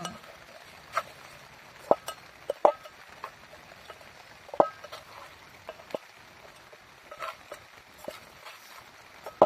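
Wood cooking fire crackling: irregular sharp pops and snaps over a faint steady hiss, about six loud ones, some with a brief metallic ring.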